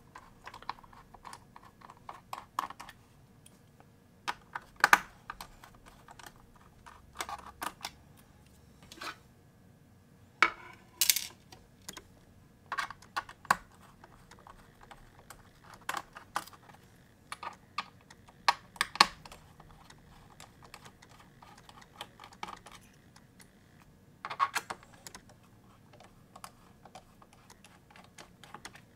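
Small metallic clicks and taps of a precision screwdriver working the bottom-case screws out of a MacBook Pro A1708's aluminium case, coming in irregular clusters with short pauses between them.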